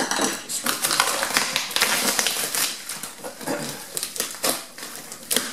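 Plastic packaging crinkling and rustling as a cardboard parts box is unpacked: a dense crackle of many small clicks, busiest in the first couple of seconds.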